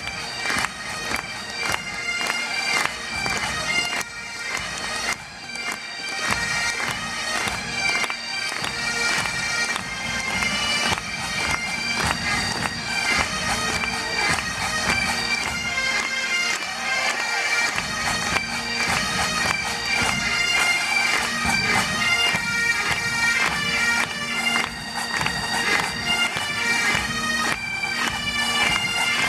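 Bagpipes playing a tune: quickly changing chanter notes over a steady drone.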